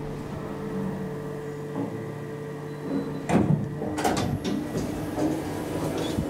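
KONE traction elevator car running with a steady hum, then stopping at a landing with clunks about three seconds in, followed by the car doors sliding open.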